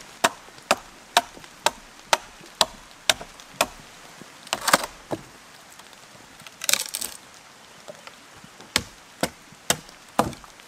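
Steady blows, about two a second, as a log is split into boards by hand, then a short crackle of wood a little past the middle and four more blows near the end.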